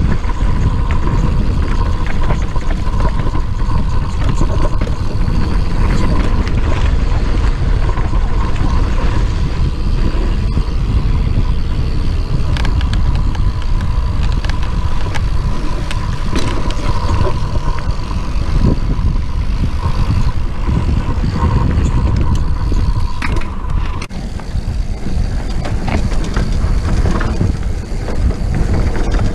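Mountain bike riding down a dirt trail: heavy wind rumble on the camera microphone over tyres rolling on dirt, with rattles and clicks from the bike. A steady thin whine runs through most of it and cuts off suddenly near the end.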